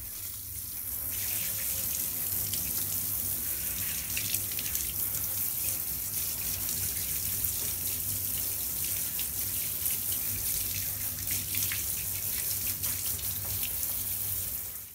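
Handheld shower head spraying water onto a 1/16 RC buggy's chassis in a bathtub, washing the dirt off it: a steady hiss of spray and splashing that cuts off suddenly at the very end.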